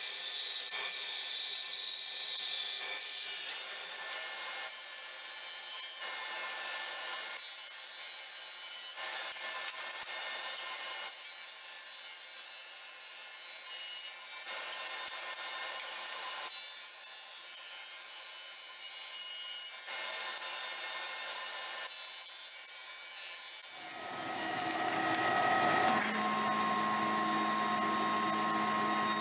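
Woodshop power tools working oak boards in a run of short clips: a bandsaw cutting a board, then a drum sander with a steady high whine as boards are fed through. Near the end the sound changes to a lower, fuller machine hum.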